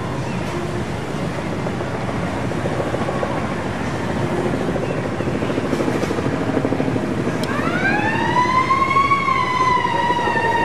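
A siren wail comes in about two-thirds of the way through. Its pitch rises, then slowly falls, over a steady background rumble.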